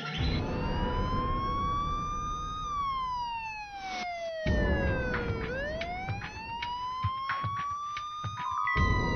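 A siren wailing, its pitch rising slowly, falling over about three seconds and rising again, over a low rumble. Near the end it changes to steadier, higher tones.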